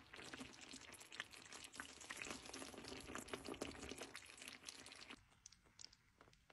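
Creamy sauce simmering in a skillet, faintly bubbling with many small pops; it stops abruptly about five seconds in.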